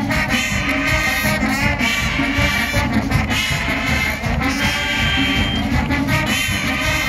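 Large marching band playing, brass carrying the tune over a steady drum beat.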